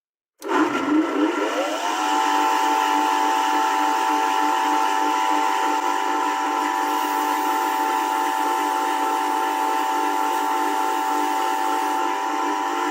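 A small electric motor starts about half a second in, winds up in pitch over a second or so, then runs at a steady whine.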